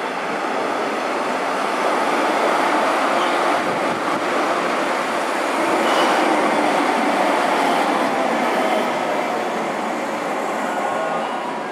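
JR West 103 series electric commuter train running on the rails, a continuous rumble and rail noise that swells to its loudest about halfway through and eases off towards the end.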